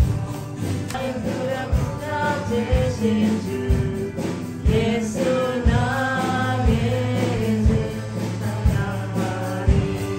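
Live church worship band playing a song: a male singer on a microphone over drum kit, guitar and keyboard, with a drum beat about once a second.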